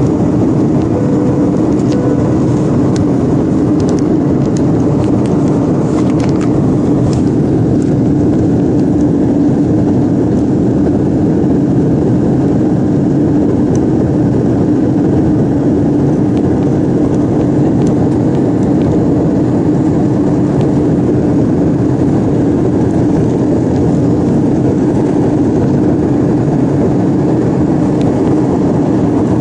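Jet airliner in flight heard from inside the passenger cabin: the engines and rushing air make a steady, unchanging drone with a strong low hum.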